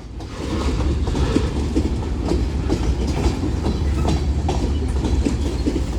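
BNSF manifest freight train rolling past: a steady low rumble with irregular clicks and clacks of wheels over the rail joints, building up in the first half second.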